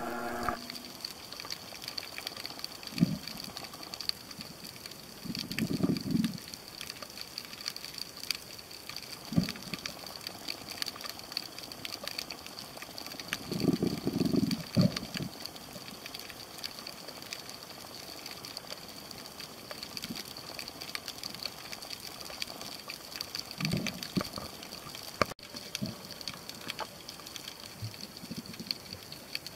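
Underwater sound picked up by a snorkeller's camera: constant faint crackling clicks and a steady high whine, with a low whoosh of water moving past the camera every few seconds, the strongest about halfway through.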